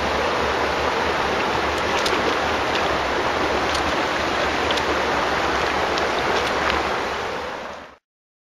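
Shallow stream water rushing and splashing close to the microphone, a steady rush with a few faint clicks, fading out and stopping just before the end.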